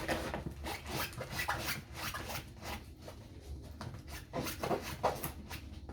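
Rustling and rubbing of a stiff rolled diamond-painting canvas being handled and unrolled, in a run of irregular scraping strokes.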